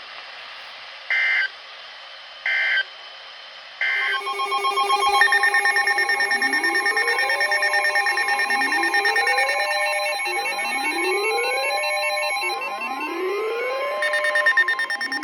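Emergency Alert System end-of-message signal: three short bursts of warbling two-tone data noise, marking the end of the weather warning. About four seconds in, a layered electronic tone sequence starts, with steady tones and a rising sweep repeating about every two seconds.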